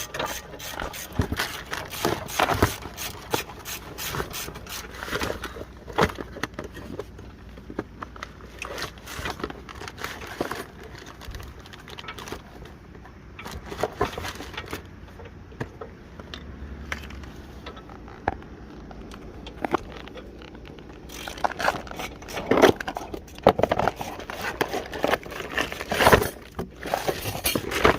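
Crinkling and rustling of packaging, with irregular clicks and knocks of metal parts being handled, as a box of new brake pads and their clips is unpacked. The knocks grow busier and louder near the end.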